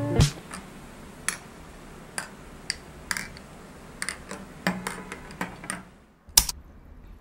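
Metal spoon clinking irregularly against a glass mug while stirring passion fruit into sparkling water, over a faint fizzing hiss. A single sharp clack comes near the end.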